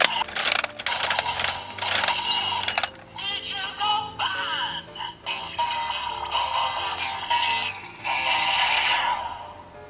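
Zenkaiger toy Sentai Gear's hidden sound, played in reverse through a toy's small speaker. A few sharp clicks near the start are followed by a run of electronic sound effects and synthesized music-like tones with sweeping, rising glides, broken by short pauses.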